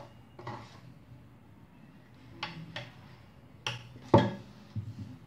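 A few sharp clinks and knocks of a metal spoon and steel bowls of batter against each other and the counter, the loudest about four seconds in.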